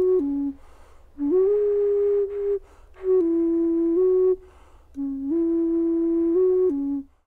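A flute playing a slow melody in short phrases of steady held notes. Each phrase steps up a note and back down, with brief pauses between phrases.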